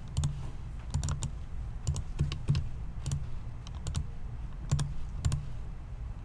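Computer keyboard keys clicking in short irregular clusters, over a low steady hum.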